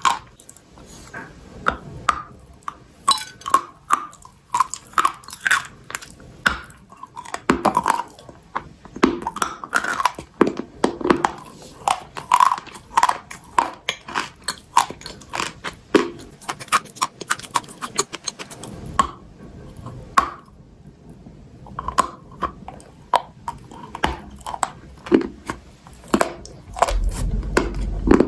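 Close-miked biting and chewing of brittle eating chalk or baked clay: many sharp, dry crunches in quick succession, with a short lull about two-thirds of the way through.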